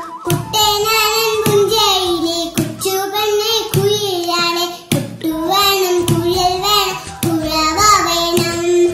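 A young child singing a vanjipattu, the Malayalam boat song, in short phrases of held, wavering notes. A regular knock about once a second marks the rowing beat.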